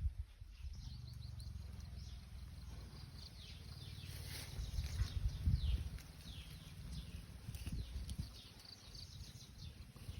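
Small birds chirping: many short, quick falling chirps, busiest around the middle, over a low rumble.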